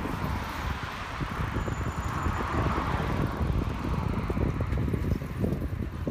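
Wind buffeting a phone's microphone: a steady, loud, rumbling rush.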